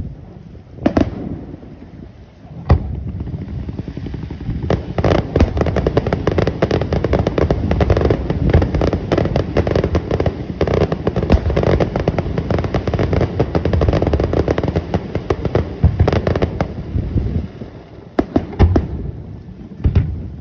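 Fireworks display: a few single booming shell bursts, then about twelve seconds of dense, rapid crackling bangs, then two more single booms near the end.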